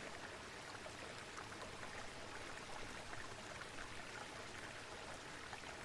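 Steady, soft rush of flowing water, even and unbroken.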